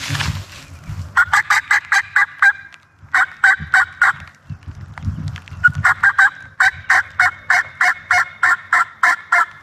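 Turkey yelping: three fast runs of sharp, evenly spaced notes, about six a second, the last and longest lasting around four seconds.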